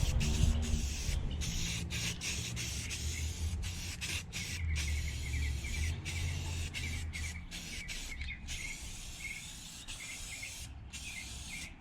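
Paint spraying in a run of short bursts with brief breaks between them, laying down the final coat of gray on a minibike frame. Faint chirps sound in the background.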